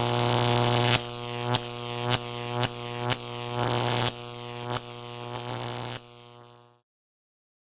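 Intro sound design for a logo animation: a steady low droning tone with a sharp hit every half second to a second, dropping away about six seconds in and fading out to silence near the end.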